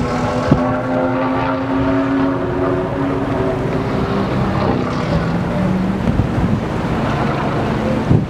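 Stock car engines running at the speedway, a steady engine note that drops in pitch about halfway through, with wind buffeting the microphone.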